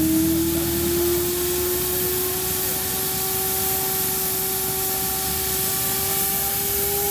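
1910 Stanley Steamer venting steam in a steady hiss, with a whistling tone above it that rises slowly in pitch.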